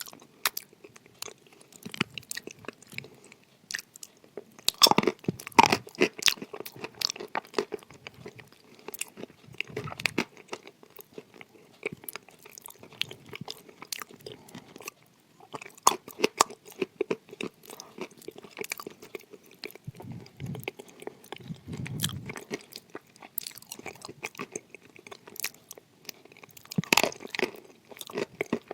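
Close-miked chewing and crunching of clay: a dense run of crisp crackles, with louder bursts of crunching every few seconds as fresh bites are chewed.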